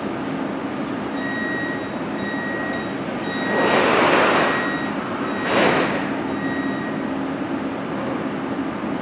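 Siemens Inspiro metro train's door-closing warning: repeated high beeps begin about a second in, and the doors slide shut with two loud hisses, the first about a second long, the second short. A steady low hum runs underneath.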